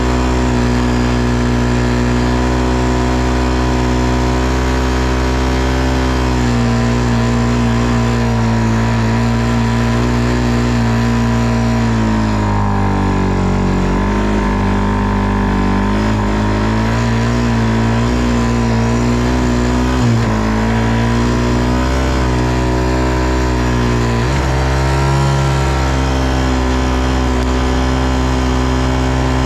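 ATV engine running under way, a steady drone whose pitch dips and climbs back with the throttle about halfway through and again near the end.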